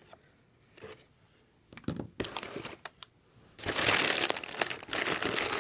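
Packaging crinkling as it is handled during unboxing: quiet at first, then a few short crackles, then louder, continuous crinkling from about three and a half seconds in.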